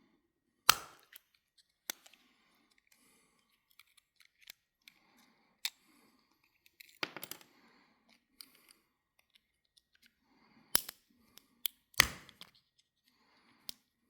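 Scattered sharp clicks and snaps of a Swiss Army knife being worked apart by hand, its scales pried off with a blade near the rivets. The two loudest snaps come under a second in and near the end.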